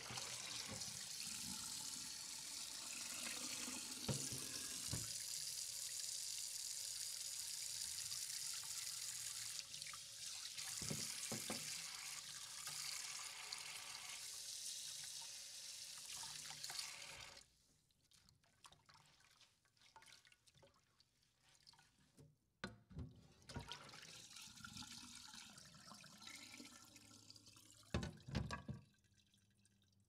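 Dishes being washed at a sink: a tap runs steadily with occasional knocks of dishes, the water stops suddenly about halfway through, then scattered clinks and knocks follow, with a quieter run of water and a couple of loud knocks near the end.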